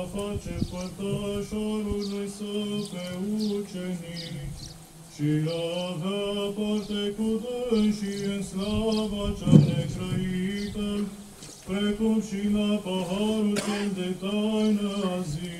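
Men's voices singing Orthodox church chant together, in long held notes over three phrases with short breaks between them. A brief knock sounds about ten seconds in.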